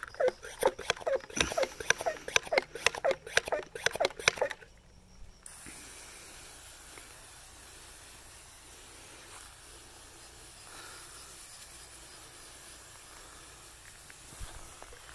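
Leaves and stems rustling and crackling close to the microphone for the first few seconds. Then, about five seconds in, a pressurized hand-pump garden sprayer starts spraying with a faint, steady hiss.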